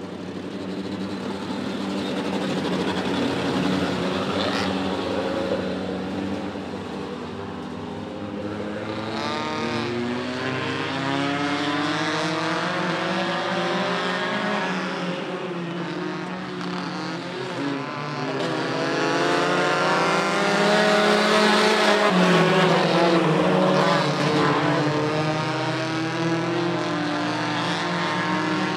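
Several mini pickup truck race engines revving up and down together as the pack laps the track, their overlapping pitches rising and falling. The sound swells loudest about two-thirds of the way in as the trucks pass close.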